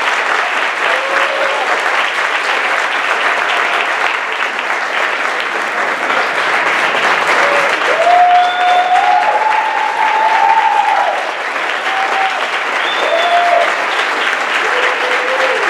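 Audience applauding steadily, with several voices cheering over the clapping through the middle, where it is loudest.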